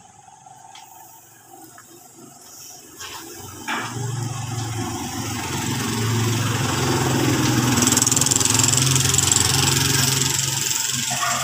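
Stick (arc) welding on a steel gate frame: a crackling, hissing arc over a steady low hum. It starts about four seconds in and grows louder toward the end.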